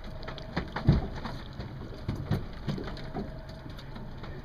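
Water splashing and dripping, with scattered sharp clicks and a few heavier thumps.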